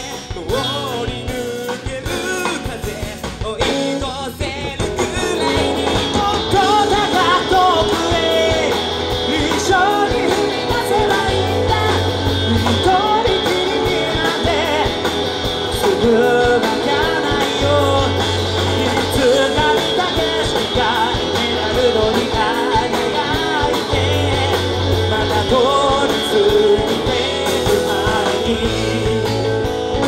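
Rock band playing live: a male voice singing over electric guitars, bass guitar and drums, with the full band getting louder about five seconds in.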